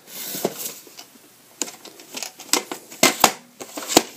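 Plastic VHS clamshell case and cassette being handled: a soft rustle, then a handful of sharp plastic clicks and knocks, mostly in the second half.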